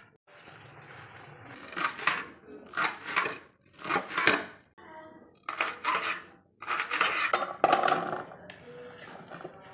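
Kitchen utensils clattering and scraping against dishes in a run of irregular short bursts.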